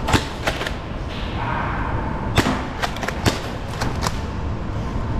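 Foam dart blasters firing during a Nerf game, with darts striking nearby: about eight sharp snaps at uneven intervals, the loudest just after the start and about two and a half and three and a quarter seconds in.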